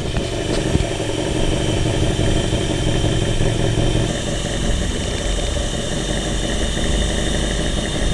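Ford 302 V8 engine idling steadily at about 800 to 900 rpm, with its accessory belt removed.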